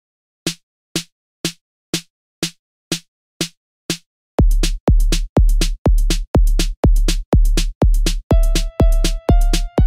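Electronic music with a drum-machine beat, about two beats a second. It starts with light clicking hits, a heavy deep kick drum joins on every beat about four seconds in, and a synth melody comes in near the end.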